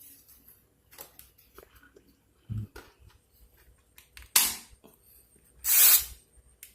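Handling noises from a cordless drill and its parts being worked by hand: scattered small clicks and knocks, with two louder brief scraping rustles, one about four seconds in and a longer one about six seconds in.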